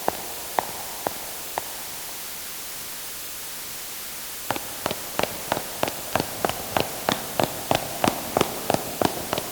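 Footsteps over a steady hiss. The last few paced steps end in the first second and a half, and after a pause a quicker, even run of steps starts about halfway through, about three a second.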